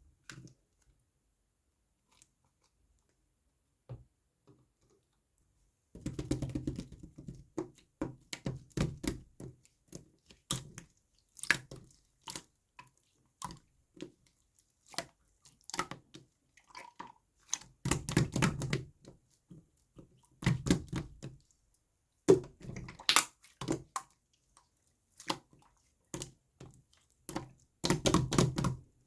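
Lemonade slime being squished and pressed by hand, making wet sticky clicks and pops. It is almost silent at first, then, about six seconds in, comes in bursts of squishing with short pauses between them.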